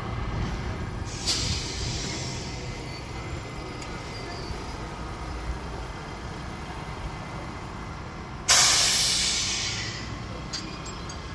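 Compressed air hissing out in a sudden loud burst about eight and a half seconds in, fading away over a second and a half. A shorter, weaker hiss comes about a second in, and a low steady rumble runs underneath.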